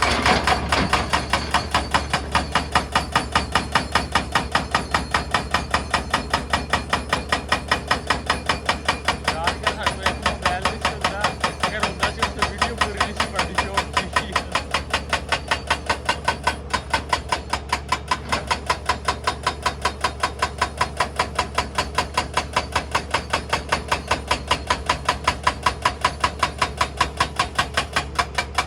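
Excavator-mounted hydraulic breaker hammering rock: a steady run of hard blows, about four a second, over the low drone of the machine's engine.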